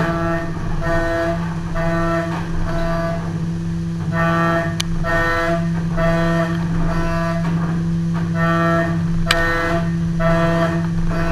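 Fanuc Robodrill CNC mill running with a steady low spindle hum, and a pitched cutting tone that pulses on and off about every 0.6 s. Two sharp clicks come near the middle and about two-thirds of the way in.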